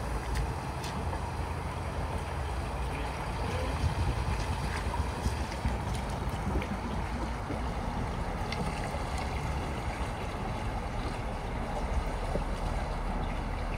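A vehicle driving through deep floodwater: a steady low rumble with rushing, splashing water.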